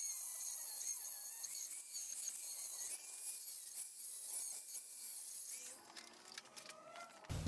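Old Craftsman electric hand grinder, its universal motor run through a speed control box, whining at high speed as it grinds the sawn edge of a steel turbo support bracket smooth. The whine wavers a little in pitch and stops about six seconds in, leaving a few faint clicks.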